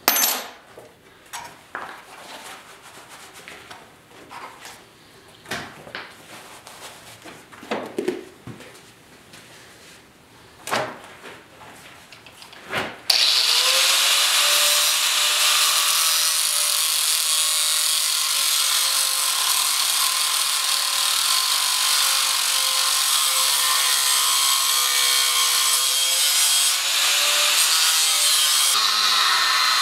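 A few light clicks and knocks of metal being handled, then about 13 seconds in a loud, steady angle grinder with a thin cut-off wheel comes in and runs, its pitch sagging slightly near the end as the wheel cuts a groove into a half-inch cold-rolled steel rod held in a vise.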